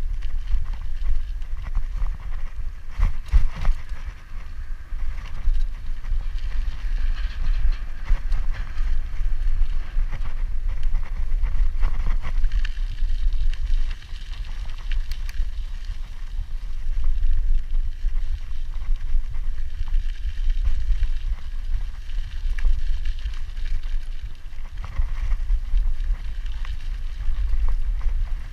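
Wind rumbling on the microphone over a steady hiss.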